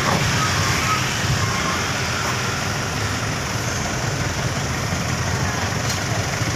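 Diesel engine of a dump truck running steadily at an even, low pitch.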